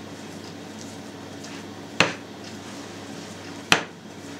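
Two sharp knocks against a glass mixing bowl, about two seconds in and again near the end, as risen yeast dough is punched down in it by hand; faint handling noise and a low steady hum between.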